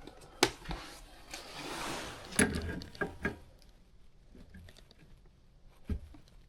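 Scattered sharp clicks and metal knocks of hand tools working on a furnace gas valve and its fittings, with a short rustling hiss about a second and a half in.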